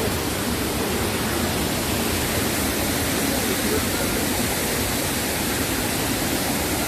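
Large waterfall pouring, a steady, even rush of falling water.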